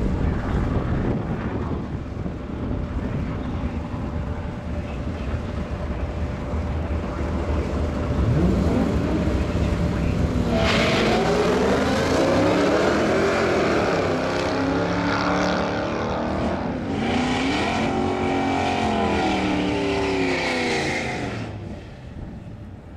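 A Ford Lightning pickup and a Nissan Maxima's V6 idle at the line. About eight seconds in, the engines rev and the cars launch, running hard with the pitch climbing and dropping at each gear change. The sound falls away near the end as the cars finish the run.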